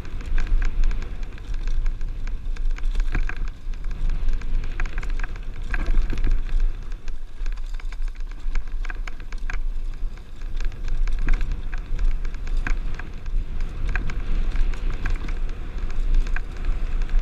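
Mountain bike riding over bare slickrock, heard from a helmet-mounted camera: wind rumbling on the microphone under an irregular patter of small clicks and rattles from the tyres, bike and camera mount.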